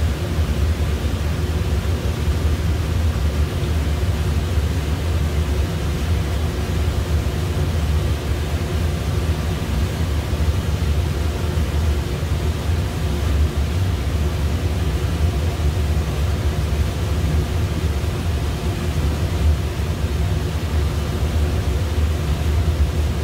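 Gas-fired Middleby Marshall conveyor pizza oven running with its burner lit and blower fan on: a steady, loud, low rumble as the oven heats up toward its set point.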